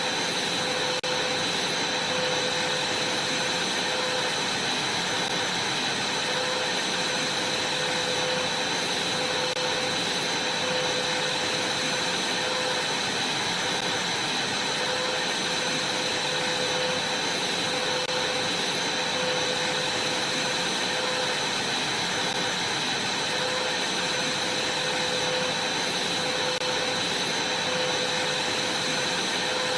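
Vacuum cleaner running steadily: an even rushing hiss with a high whine and a lower hum that wavers slightly.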